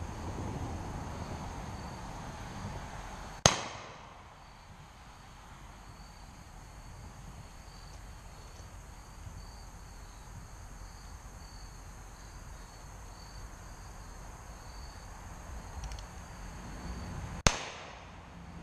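Two revolver shots fired from horseback, blank rounds as used in mounted shooting: one about three and a half seconds in, the other near the end, each a sharp crack with a short echo. Insects chirp steadily underneath.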